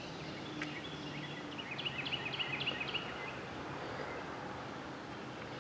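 A bird singing a quick run of high chirps about two seconds in, over faint outdoor background noise. A faint low steady hum is heard in the first second and a half.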